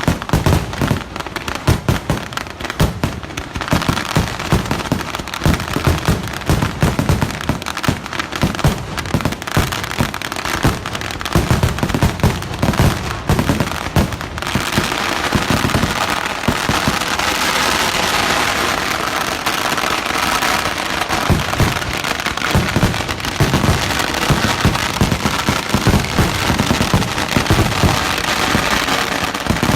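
Temple festival fireworks barrage (vedikkettu): a dense, rapid string of loud firework bangs. About halfway through it thickens into a continuous crackling din, with explosions overlapping.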